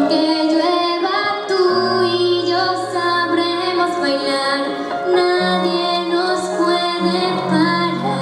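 A young female singer singing a solo melody with sustained, wavering notes over an instrumental accompaniment whose low notes change every few seconds.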